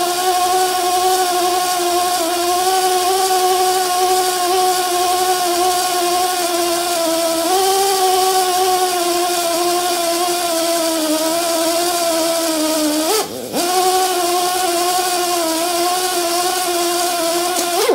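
Drill running steadily at speed, spinning a spring-loaded three-stone cylinder hone in the engine's cylinder bore during a final honing pass. The motor's hum dips briefly and picks back up about 13 seconds in.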